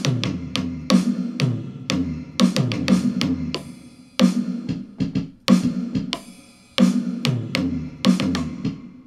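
Yamaha DD-65 digital drum pads struck with a drumstick, playing a drum pattern through the unit's built-in speakers. The hits come about every half second, several with a deep falling boom after them, and the playing stops near the end.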